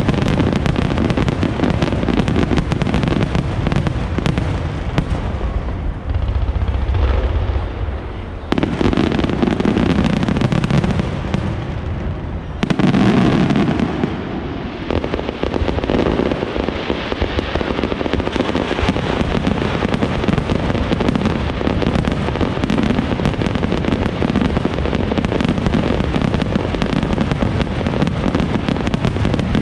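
A rapid-fire barrage of aerial firework shells bursting in quick succession, with booms and crackle running into one another without a break. The barrage thins briefly about six seconds in, then surges back about eight and a half and again about thirteen seconds in.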